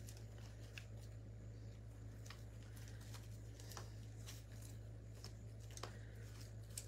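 Faint rustling and scattered light clicks of eucalyptus sprigs being handled and tucked into a metal lantern, over a steady low hum.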